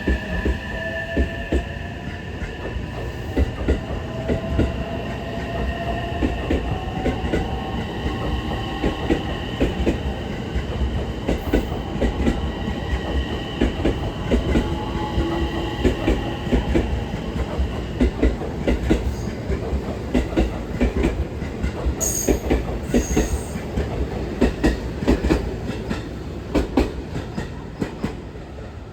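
JR electric train running along the track, its wheels clicking irregularly over the rail joints, with a high whine that slowly shifts in pitch and fades out about two-thirds of the way through.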